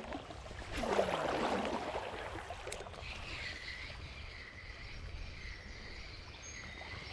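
Flowing river water, with a louder splash about a second in and a faint wavering high tone over the second half.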